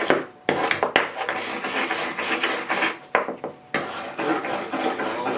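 Rough hand scrubbing strokes against small pieces of aluminum stock, cleaning the metal before welding. The strokes are loud and run in long passes, with short breaks about half a second in and twice around three seconds in.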